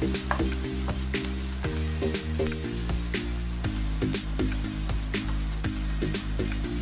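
Chopped onion and garlic sizzling and crackling in hot oil in a nonstick frying pan, stirred with a wooden spatula at first, with many small pops. Soft background music with changing held notes plays underneath.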